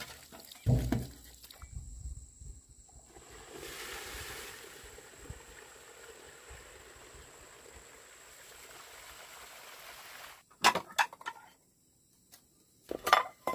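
Dishwashing sounds: a heavy knock about a second in, then a long stretch of soft, even noise. Near the end come two quick clusters of sharp clinks as ceramic bowls are set into a plastic basket.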